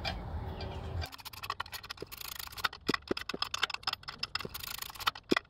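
Rapid, irregular clicking of a hand ratchet running down the flywheel bolts, starting about a second in.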